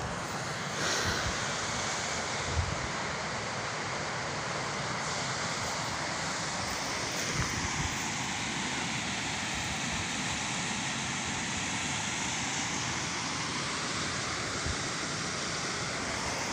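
Steady wind rushing over the microphone, an even hiss with a few faint thumps.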